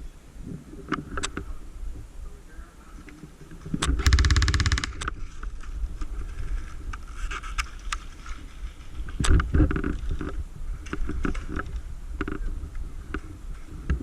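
Airsoft gun firing one rapid full-auto burst of about a second. Around it come scattered clicks and knocks and a low rumble from handling and movement.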